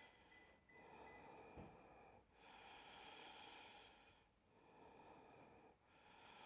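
Faint, slow breathing, soft breaths in and out following one another every second or so, with a soft low tap about one and a half seconds in.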